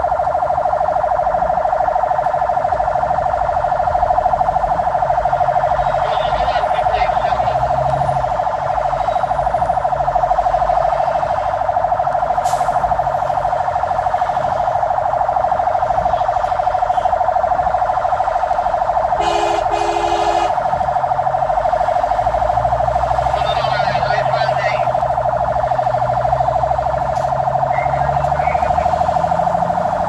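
Fire engine's siren sounding continuously as one steady, loud tone, heard from inside the truck's cab, with the truck's engine rumbling low underneath.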